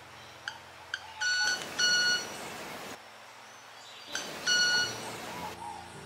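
Male club-winged manakin's wing display: two short ticks, then a buzzy, violin-like ringing note made by vibrating its wings about a second in, and another ringing note about four and a half seconds in.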